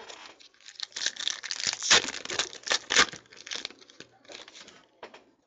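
Foil wrapper of a 2014 Panini Prizm football card pack being torn open and crinkled by hand: a dense crackling that peaks about two and three seconds in, then thins to a few lighter crinkles.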